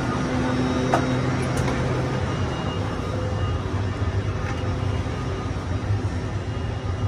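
Steady low hum and rumble of a stationary GWR Intercity Express Train at the platform, heard from its doorway and vestibule. A single sharp click about a second in.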